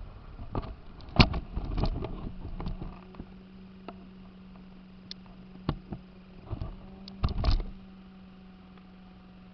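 A scatter of sharp knocks and clatters, the loudest about a second in and a cluster of them near the end, over a steady low hum that begins about two seconds in.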